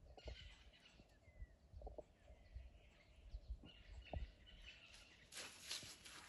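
Very quiet outdoor ambience with faint bird chirps and a few soft knocks. About five seconds in, a crackly rustling starts: a baby elephant's feet moving through dry cut grass and branches.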